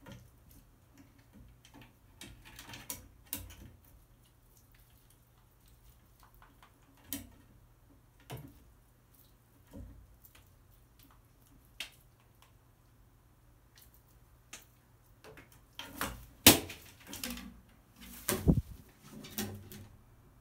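Crow's beak pecking and tugging at a piece of deep-fried tofu held in a metal clamp: scattered sharp clicks and knocks. Near the end come louder knocks and scuffles as the bird moves about on the wooden perches. A faint steady low hum runs underneath.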